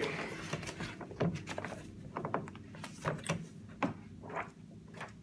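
Sheet music being handled and leafed through on a piano's music rack: paper rustling with a scattering of light knocks and taps.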